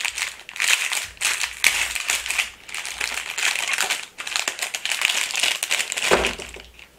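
Clear plastic wrapping around small toy figurines crinkling and rustling in quick, irregular handfuls as it is handled and opened close to the microphone.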